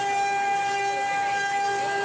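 Spindle of a 4-axis CNC wood-carving router running with a steady high-pitched whine, a lower tone coming and going as the cutter works the wood.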